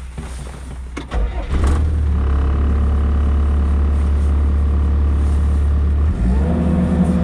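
Engine of a digging machine running, throttled up about a second and a half in and then holding steady. Near the end a whine rises in pitch and settles into a steady tone.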